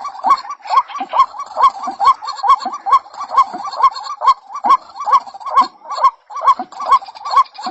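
White-breasted waterhen (ruak-ruak) calling: a short, pitched note near 1 kHz repeated over and over at a steady rhythm, about two and a half calls a second.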